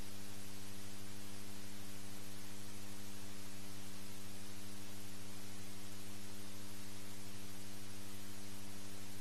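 Steady electrical mains hum with a layer of hiss on the sound system's audio feed, unchanging throughout.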